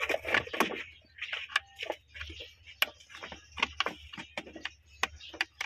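Irregular metal clicks and taps of a wrench working a bolt on a car's automatic transmission shift-cable linkage, a few sharp ticks a second.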